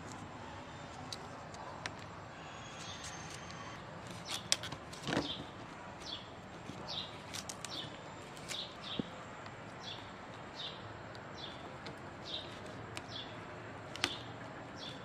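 Knife cutting through raw carrot and cauliflower, with a few sharp clicks and a knock, while a bird in the background gives a short falling chirp over and over, starting about six seconds in.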